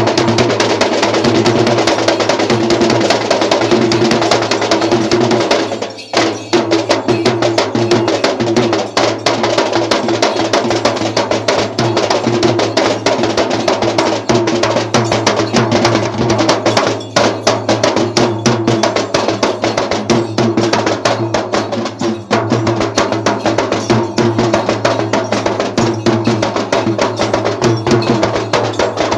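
Sri Lankan low-country yak bera drums played with both hands in a fast, dense dance rhythm. There is a brief break about six seconds in.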